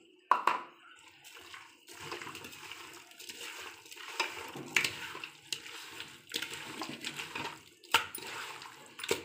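A hand squishing and kneading marinated mutton pieces in a steel pot: irregular wet squelching, with a sharp click now and then.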